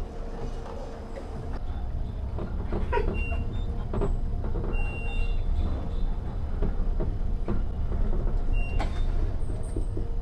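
Low, steady rumble of an elevator car in motion, heard from inside the car, with a few short high beeps and light knocks.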